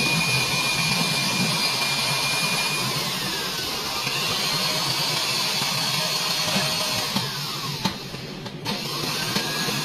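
Electric drill whining as it bores into a car's sheet-metal body panel, its pitch sagging as the bit bites, with a brief stop about eight seconds in.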